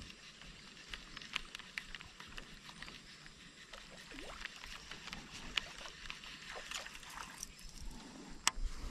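Water lapping softly against a plastic kayak hull, with scattered small clicks and ticks and one sharper click near the end.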